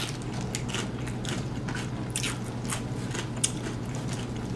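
Close-up biting and chewing of crunchy tortilla chips from a plate of nachos: an irregular run of crisp crunches, several a second.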